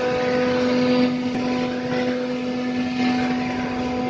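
A CNC router's spindle running with a steady even whine over a hiss.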